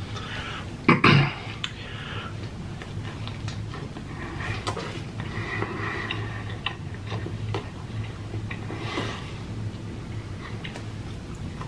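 Close-miked chewing of a double quarter pounder with cheese: one louder bite about a second in, then soft wet mouth clicks and smacks as the burger is chewed.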